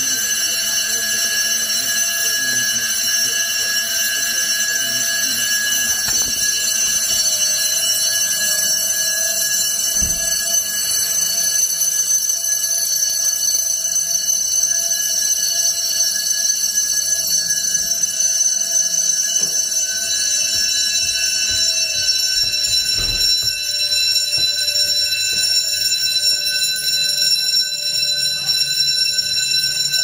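Building fire alarm bells ringing loudly and continuously, a steady ring with many high overtones, sounding for a fire alarm test. A few dull knocks come through the ringing.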